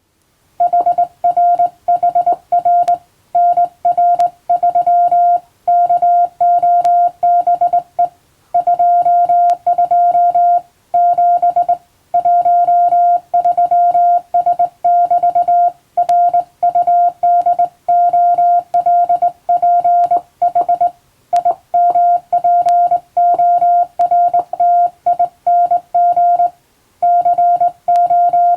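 Morse code sent as a steady tone of about 700 Hz, keyed on and off in dots and dashes, with short breaks between letters and a few longer pauses between words.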